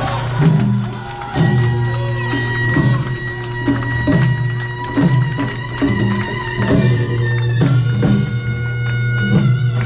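Music with a steady drum beat, bass and guitar.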